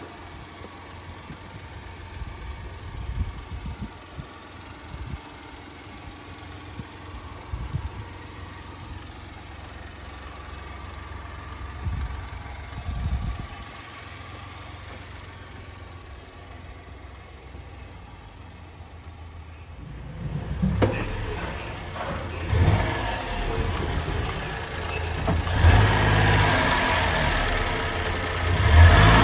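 Honda Acty kei truck's small three-cylinder engine idling. It is faint at first, then much louder and rougher from about twenty seconds in, heard close up from underneath the truck.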